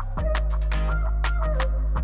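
Background music with a steady beat, a deep bass line and a bright melody.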